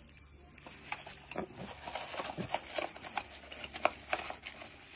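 A small cardboard-and-paper package handled and opened by hand: irregular light taps, clicks and rustles.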